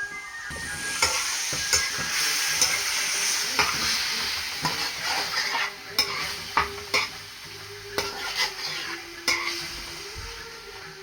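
Chicken breast frying in hot oil with its seasonings, sizzling steadily while a utensil stirs it, with sharp taps and scrapes against the pot. The sizzle is loudest in the first few seconds and eases off slightly after.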